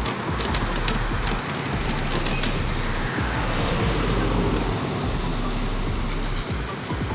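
Steady rushing road noise of a car driving along a highway, with a few light clicks in the first two or three seconds.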